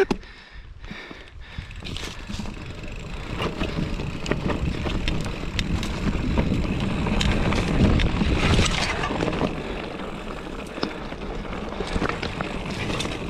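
Mountain bike descending a rough dirt singletrack: tyre noise on the trail, with sharp clicks and knocks from the bike rattling over bumps, and wind buffeting the helmet-camera microphone. It grows louder from a second or so in.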